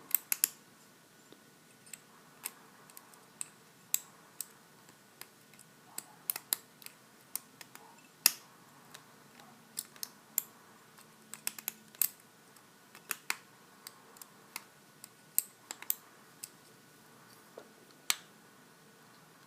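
Lock pick and tension wrench working in a Master Lock 410 padlock's core: irregular small metallic clicks and taps as the pick lifts and sets the spool pins.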